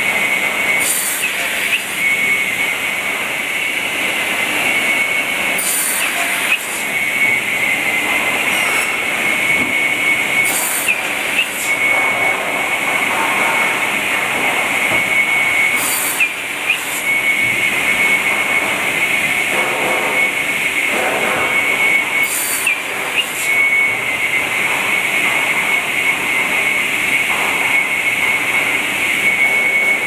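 Automated crosscut saw running continuously with a steady high whine over machine noise. About every five to six seconds there is a short hiss and a brief break in the whine as the machine cycles through a cut of wood.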